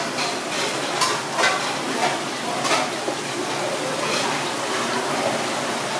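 Sea urchin shells being cracked open and handled by hand, a few short crunching clicks against a steady background hiss.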